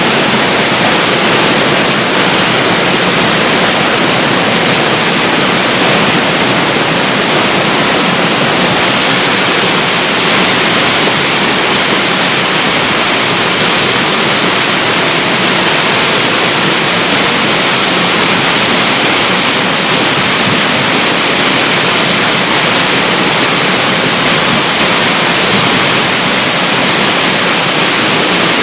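Water pouring down a large artificial waterfall: a loud, steady rush that does not change.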